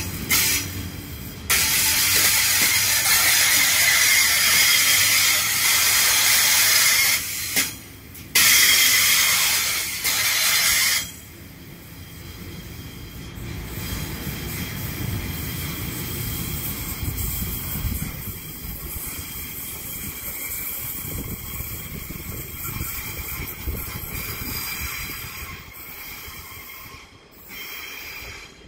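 Sydney Trains double-deck electric train running past and away along the platform. A loud high hiss lasts about the first ten seconds and cuts off suddenly. A lower rumble of the wheels follows and fades as the train goes.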